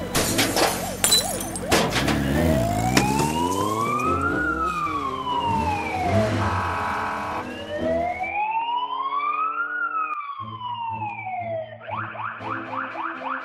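Police car siren wailing in two slow rise-and-fall cycles over a vehicle's engine. At the start, a burst of crashing and clattering as patio tables and chairs are smashed. Music with a quick beat comes in near the end.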